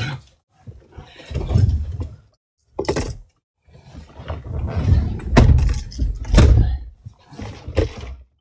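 A passenger moving about in a pickup's cab: thumps, rustles and a few sharp clicks in several separate bursts, as a drink cup and a phone are handled.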